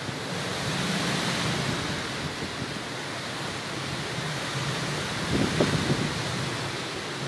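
Hurricane wind and heavy rain, a steady rush of noise that swells in gusts, with wind buffeting the phone's microphone about five to six seconds in.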